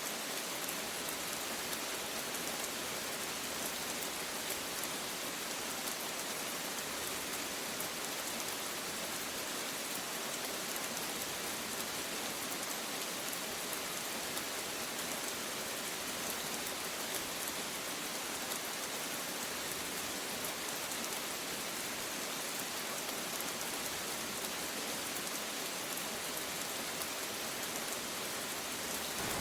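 Steady rain falling, an even hiss of drops with no change in strength and no thunder.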